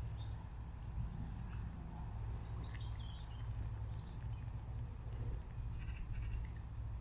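Small birds chirping a few times, about halfway through, over a steady low rumble outdoors.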